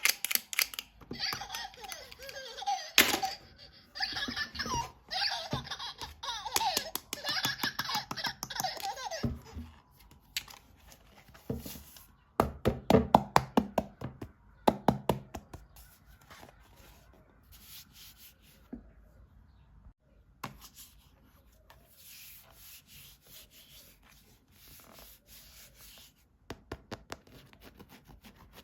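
A toy's electronic sound plays a recorded laugh for several seconds. A rapid run of sharp plastic clicks follows, then light handling and rustling of plastic toys.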